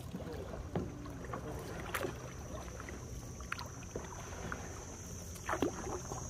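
Kayak paddles dipping and pulling through calm water: a few separate splashy strokes and drips over a faint steady high whine.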